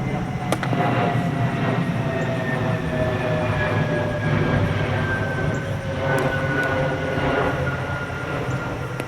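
Loud, steady rumble of a large passing vehicle, with a whine that falls slowly in pitch throughout. A single sharp click comes about half a second in.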